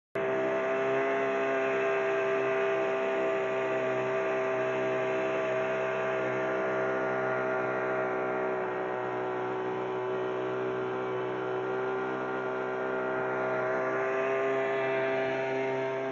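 Small outboard motor running at a steady cruising speed, pushing a small boat along a river. Its drone holds one even pitch throughout, rising slightly near the end.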